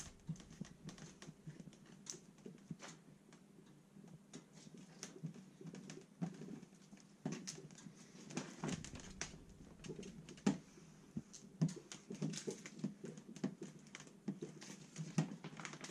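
Vinyl wrap film being worked onto a car body panel by hand: irregular small clicks, taps and crackles as the film is smoothed down and the bubbles are pushed out.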